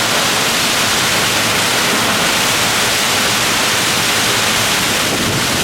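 Close waterfall in heavy flow after much rain, a steady loud rush of falling water.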